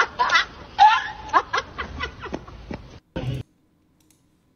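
A person's voice with short rising and falling sounds, followed by a few brief clicks. The sound then cuts off abruptly to dead silence about three and a half seconds in.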